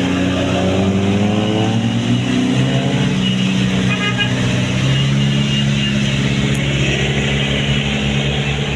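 Tour bus's diesel engine accelerating, its pitch rising over the first two seconds and then holding steady.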